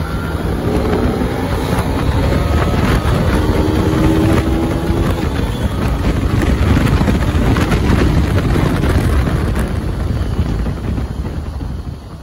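KTM Duke 200 single-cylinder engine pulling hard at road speed, its pitch rising through the revs, under heavy wind noise on the microphone. It eases off near the end as the bike slows.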